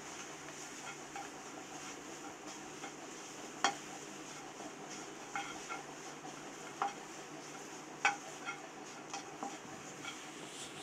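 Wooden spatula stirring and tossing curry leaves as they dry-roast without oil in a nonstick kadai: light scraping with several sharp taps of the spatula against the pan, over a faint steady hiss.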